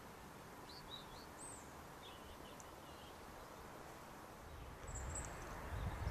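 A few small birds chirp faintly against a steady outdoor hiss. A low rumble builds on the microphone from about four and a half seconds in.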